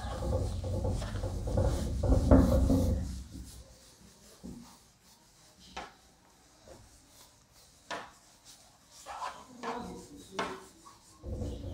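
Cloth duster rubbing across a whiteboard, erasing writing. It is loudest for the first three seconds or so, then comes as quieter scattered wipes and light knocks, and grows loud again near the end.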